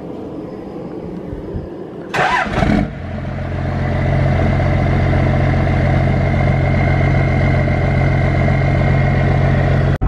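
First-generation Dodge Ram's 5.9 L Cummins inline-six diesel starting cold: a brief loud flare about two seconds in, then a steady idle that grows a little louder, with a faint high whine over the low engine note.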